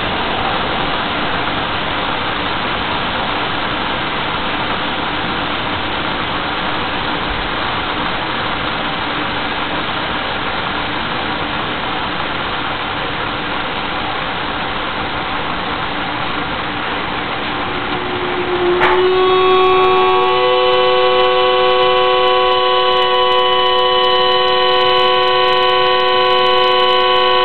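Whistling kettle on the heat: a steady rushing noise, then about two-thirds of the way in its whistle starts, several steady tones sounding together like a chord and holding on, louder than the rushing. The whistle signals that the water has come to the boil.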